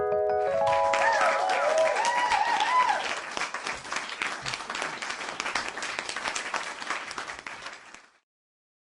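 Crowd applauding and cheering, with whoops in the first few seconds, fading away and stopping about a second before the end. A held piano chord dies out about half a second in.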